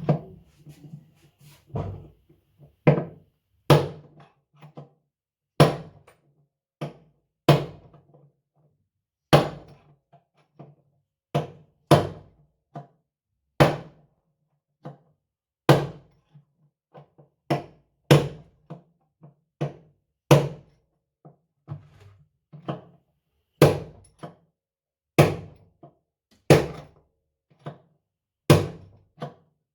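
Repeated hammer strikes knocking the old bearings out of a Samsung washing machine's tub, about one sharp metallic blow a second with a short ring after each.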